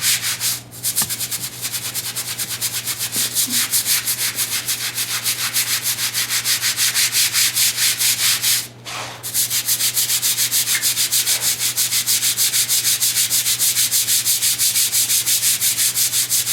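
Grout lines on a vinyl tile floor being scrubbed by hand with cleaner, in rapid back-and-forth strokes of about four or five a second, with brief pauses about a second in and about nine seconds in.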